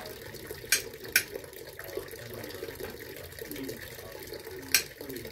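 Knife blade clicking against a ceramic plate while slicing a nectarine: two sharp clicks about a second in and one near the end, over a steady hiss.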